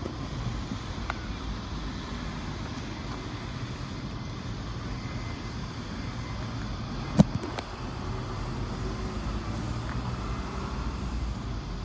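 Low, steady rumble of approaching NR class diesel locomotives hauling a freight train, growing slightly toward the end, with one sharp click about seven seconds in.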